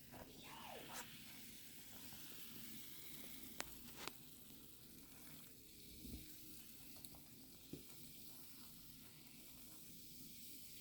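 Actively fermenting homebrew wine fizzing: a faint, steady crackling hiss of carbon dioxide bubbles breaking at the surface, the sign of a vigorous fermentation. Two sharp clicks come a little under halfway through.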